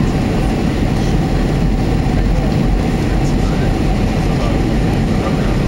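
Steady engine and airflow roar inside the cabin of a Boeing 767-300 on final approach, heard from a window seat over the wing. The noise is even and unbroken, heaviest in the low end.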